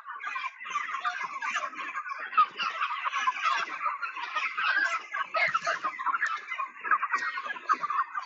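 A flock of broiler chickens calling continuously, many short overlapping calls at once.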